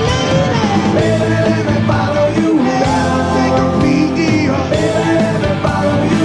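A live rock band playing: a male lead vocal sung over electric guitar, bass and drums.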